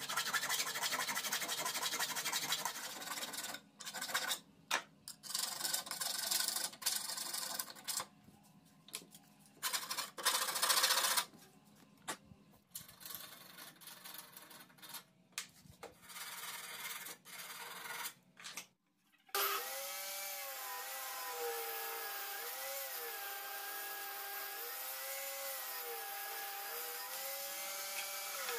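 Hand file rasping against the metal base plate of a circular saw, in runs of strokes with short pauses. About two-thirds of the way in the filing stops, and a steady sound with rising-and-falling tones takes over.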